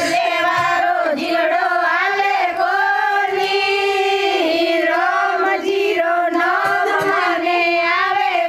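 Women singing a Hindi devotional bhajan together in a group, voices only. The sung line runs on continuously, rising and falling in pitch.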